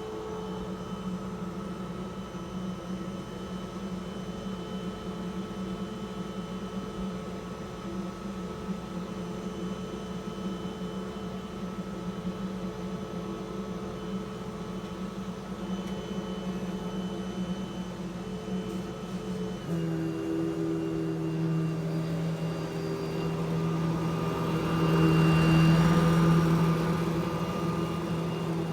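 Eureka Smart Vac upright vacuum cleaner running with a steady motor whine. About two-thirds of the way in its pitch drops a little, and near the end it grows louder with more rushing hiss.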